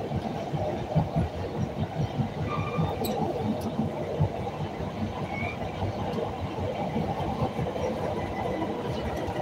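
CTA Red Line rail car running along the track, heard from inside the car: a steady rumble with many short low knocks from the wheels.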